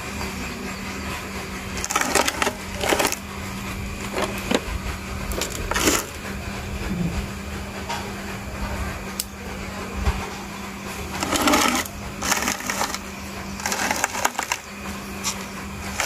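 Short clusters of sharp clicks and crackles from hand tools working among a small bonsai's twigs, about eight times, over a steady low hum.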